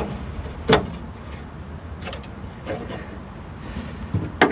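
Sharp metallic clicks and knocks of a hand tool working on the radiator mounting bolts, one about three-quarters of a second in, a couple of fainter ones midway and a cluster near the end, over a steady low rumble.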